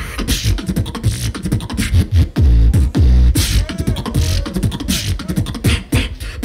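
Amplified beatboxing through a microphone and stage speakers: a rapid stream of vocal kick-drum and snare sounds, with a deep sustained bass sound in the middle and a few short sliding pitched sounds just after it.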